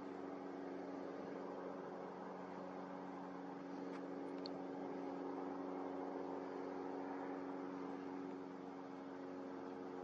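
Small camera drone's propellers humming steadily: several held tones over a hiss. One short high chirp comes about four and a half seconds in.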